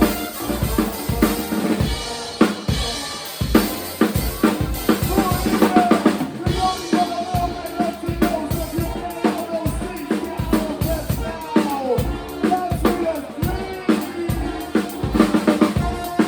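Live band playing, with a drum kit driving a steady beat of bass drum, snare and rim hits. A wavering melody line rides over the drums through the middle.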